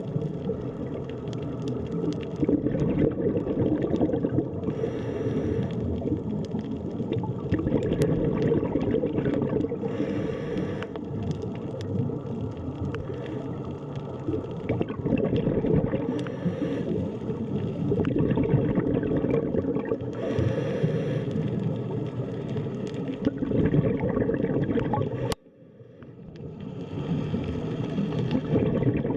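Underwater sea ambience: a muffled, churning water rumble with gurgling that swells about every five seconds. It cuts out abruptly near the end and fades back in.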